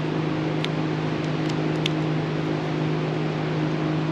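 A steady low machine hum, with a few faint light clicks as a small screwdriver works a rubber boot over a plastic wiring connector.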